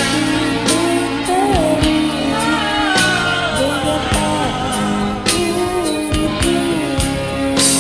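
A voice singing a slow pop melody over a karaoke backing track with drums and guitar.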